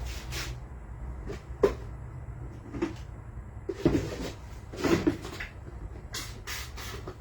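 Several separate knocks and clatters, about a second apart, of objects being picked up and set down while rummaging, likely for a container for the parts pulled off an engine block. A low steady hum runs underneath.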